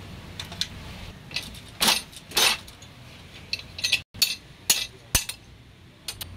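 A steel ring spanner clinking and clanking against the metal body of a diesel fuel feed pump held in a vise: a string of sharp metallic clinks, the loudest about two seconds in.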